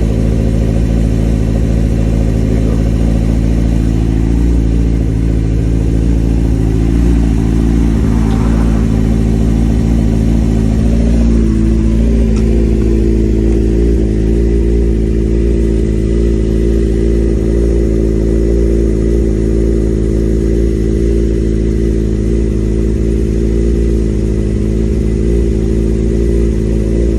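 A 2003 Suzuki GSX-R750's inline-four engine idling steadily. The idle note shifts slightly about eleven seconds in.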